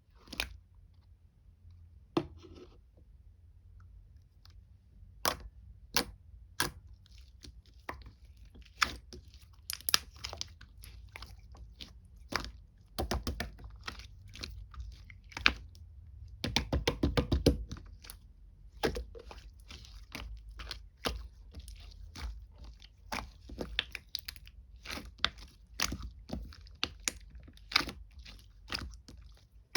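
Slime being squished and poked by hand, making irregular sharp clicks and wet pops, with a quick run of crackling a little past halfway.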